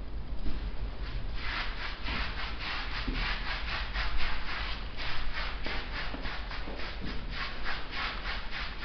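Hand-held applicator rubbing sand-textured decorative paint across a wall in quick back-and-forth strokes, a gritty rubbing about four strokes a second, starting about a second and a half in.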